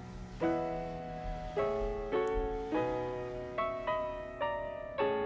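Background music: a gentle solo piano playing slow chords, each struck and left to ring out.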